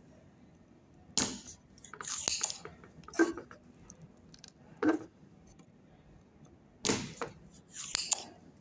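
Irregular clicks and scrapes from a soldering iron and fingers working at a circuit board while a tight capacitor is desoldered, about six short bursts after a quiet first second.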